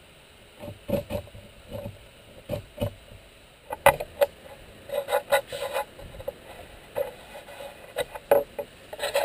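Short, irregular scraping strokes of a hand-held blade on a plywood edge, with a few light knocks, cleaning off a saw-cut ridge and dried glue.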